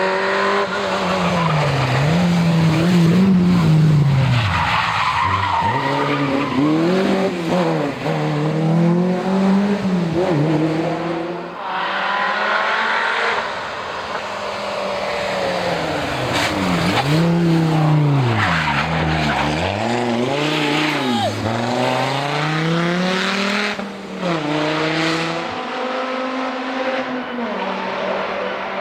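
Historic rally cars driven hard on a special stage: engines rev up and fall back again and again through gear changes and lifts, with tyres skidding in the corners.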